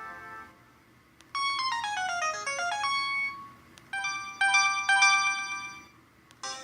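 LG Fusic mobile phone ringtones: one tune fades out, then about a second in a new synthesized tune plays a quick run of falling notes, followed by held chiming notes from about four seconds in.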